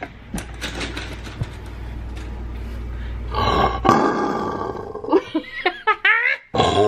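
Lion-like roar made with a paper towel pulled through pinched fingers. A low rasp builds into a loud pitched roar about three seconds in, followed by shorter roars that sweep up and down in pitch near the end.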